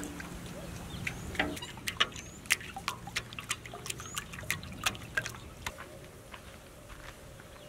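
A metal spoon stirring a liquid egg-and-milk mixture in a large metal plate: irregular clinks of the spoon against the plate with the liquid splashing, stopping about five and a half seconds in.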